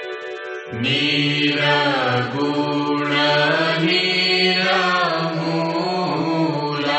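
Hindu devotional aarti chanting: a voice sings long, gliding phrases over a steady sustained drone. The voice comes in about a second in.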